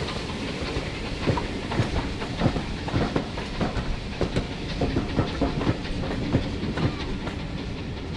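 Railway train running along the track: a steady rumble with irregular sharp clicks and knocks, several a second, from the wheels passing over the rail joints.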